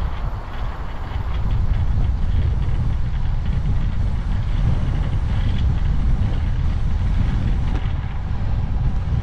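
Wind buffeting the camera's microphone while riding a road bike: a loud, steady low rumble with a fainter hiss above it, growing a little louder about a second and a half in.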